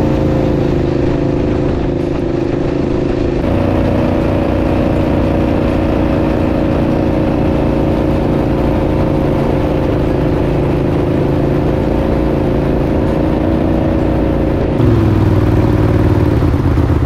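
An engine running at a steady speed. About fifteen seconds in, its pitch drops and the low rumble grows louder.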